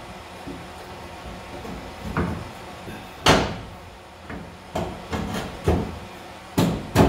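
A series of short metal clunks and knocks, about seven, the loudest a little over three seconds in and two close together near the end, from hands-on work on a car's front suspension in the wheel well.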